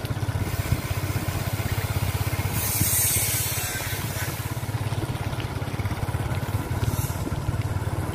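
Small motorcycle engine running steadily at low riding speed, with wind rushing over the microphone; the rush of wind swells briefly about three seconds in.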